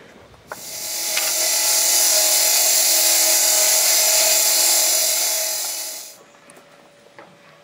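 A masonry wet saw cuts through a concrete paver with a loud, steady grinding hiss over a steady motor hum. The sound builds over about a second and stops about six seconds in.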